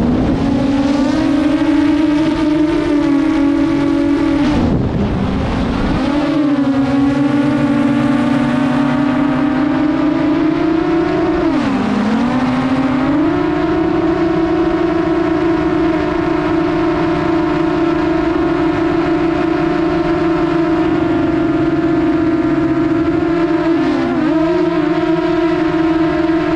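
DJI Mavic quadcopter's propellers and motors whining at a steady pitch. The pitch dips briefly and recovers several times.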